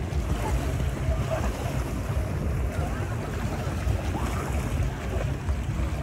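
Wind buffeting the microphone over small waves lapping at the shore, a steady rumble and wash with faint distant voices.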